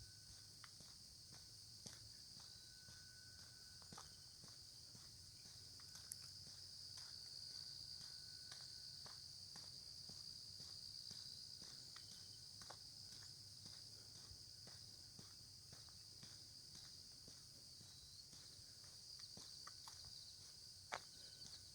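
Faint, steady, high-pitched chorus of insects, with soft footsteps about once a second from someone walking along a lane.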